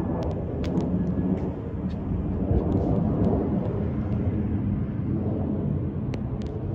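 Steady low rumble of a distant jet airliner's engines, with a few faint clicks.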